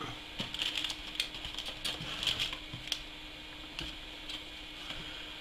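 Plastic model-kit sprues and their packaging being handled: a run of light clicks, taps and crinkling for the first three seconds or so, then only an occasional click.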